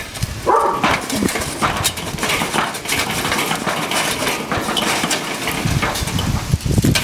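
Lit charcoal poured from a metal chimney starter onto unlit coals in a Weber kettle grill: the coals clatter and clink against the chimney and grate in a run of small sharp clicks. It is the hot coals being added to cold ones to start a slow minion-method fire.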